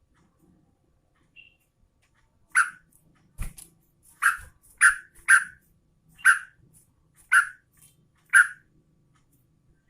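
Yellow-vented bulbul (trucukan) giving a series of about seven short, sharp call notes, spaced half a second to a second apart, with a single low thump among the first notes.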